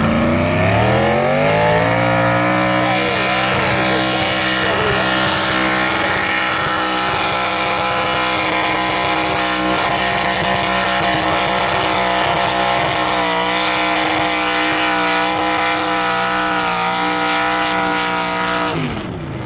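Modified pulling tractor's engine revving up over the first couple of seconds, then held at high revs under heavy load as it drags the weight-transfer sled. The revs drop off sharply near the end as the pull finishes.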